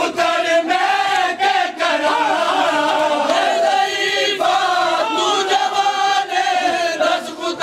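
A crowd of men chanting a mourning lament together, with slaps of hands on bare chests (matam) cutting through the singing.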